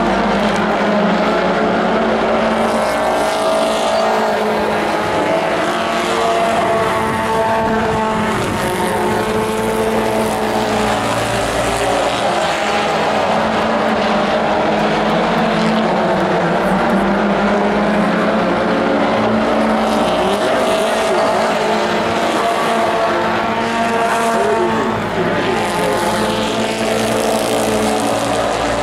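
A pack of Pro4 race trucks racing, with several engines running at once. Their engine notes rise and fall again and again as the trucks pass.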